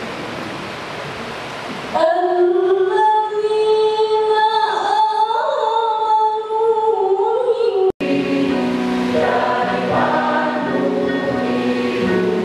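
A steady hiss, then about two seconds in a choir starts singing long held notes. There is an abrupt break near the end, after which the singing goes on.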